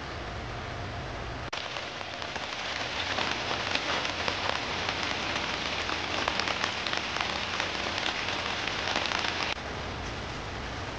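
Steady rain falling, an even hiss with many small drop ticks. It gets louder abruptly about a second and a half in and drops back just as abruptly near the end.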